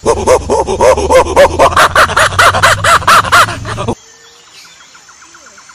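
Chimpanzee calling: a loud, fast series of hoots, about five a second, climbing in pitch as it builds, in the manner of a pant-hoot. It cuts off suddenly about four seconds in.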